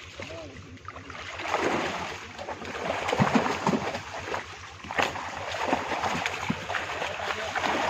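Water splashing and sloshing unevenly as a fishing net is hauled in by hand, louder from about a second and a half in, with a sharp knock about five seconds in. A low, steady thrum runs underneath.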